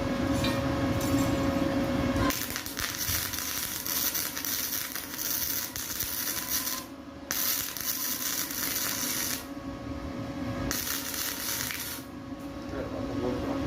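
Stick (arc) welding on steel channel: a crackling, sizzling arc that strikes about two seconds in and runs in several stretches, breaking off briefly three times before catching again.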